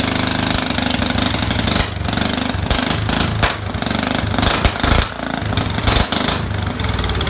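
Straight-piped John Deere lawnmower engine running loud on starting fluid, with irregular pops from the open exhaust and an uneven, faltering run from about five seconds in; the owner takes the engine to be flooded.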